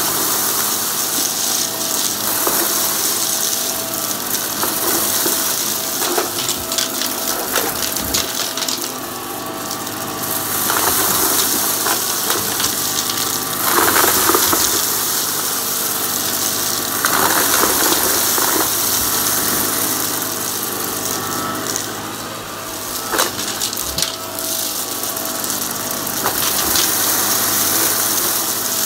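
Shark DuoClean upright vacuum running on carpet, its motor whirring steadily with a rushing of air. It sucks up dry debris in passes back and forth, with scattered crackles and rattles as hard bits are picked up.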